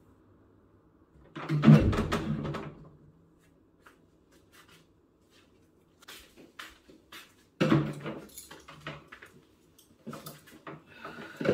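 Household handling noises on a wooden table: a loud knock and clatter about a second and a half in, another sudden clatter a few seconds before the end, then light clinks and taps of a fork in a stainless-steel pot near the end.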